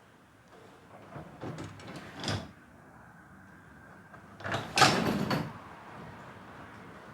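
Residential sectional garage door being worked by hand on its track: clatters and knocks, then a louder rattling run about five seconds in.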